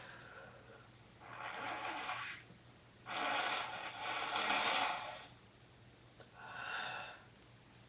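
A person blowing their nose into a tissue three times. The middle blow is the longest and loudest, about two seconds, and the last is short.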